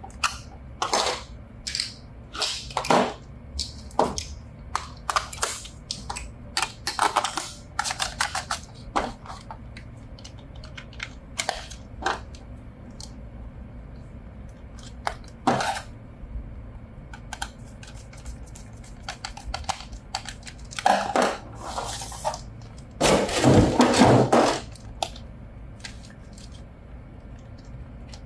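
Plastic toy packaging and parts being handled: irregular clicks, taps and crinkly rustles, busiest in the first half, with a longer, louder rustle near the end.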